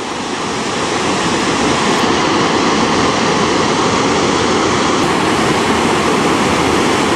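The Seti River in flash flood, its swollen water rushing with a loud, steady, unbroken noise.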